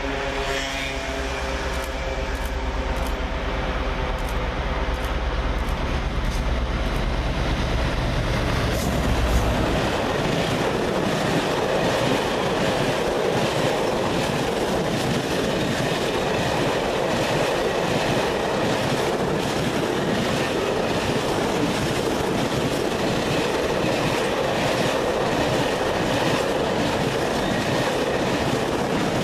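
Class 60 diesel locomotive's engine drone, loud and deep, as it approaches and passes, cutting off sharply about nine seconds in. After that, a long rake of bogie oil tank wagons rumbles steadily past, with the wheels clicking regularly over the rail joints.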